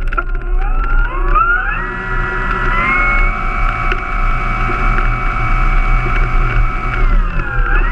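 RC Zero model's motor and propeller on the ground, speeding up with a rising whine from about a second in, holding a steady pitch, then easing off near the end.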